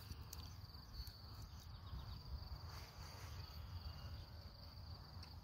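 Faint, steady high-pitched trilling of insects in a grassy meadow, over a low rumble.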